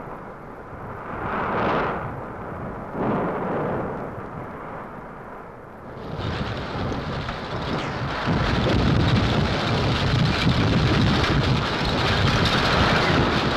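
Volcanic eruption rumbling with a continuous roar. It swells twice early on, then grows louder and fuller about six seconds in and heavier still from about eight seconds.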